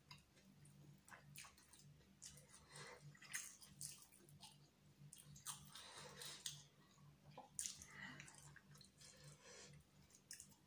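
Faint close-up eating sounds: fingers squishing and mixing chicken biryani rice on a steel plate, with chewing and wet lip smacks coming as short irregular clicks over a faint steady low hum.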